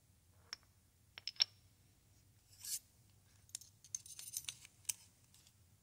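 Thin steel strips and parallels being handled and set into a steel milling vise: a few sharp metal-on-metal clicks with a short ring in the first second and a half, then a brief scrape and a flurry of clicks and scraping.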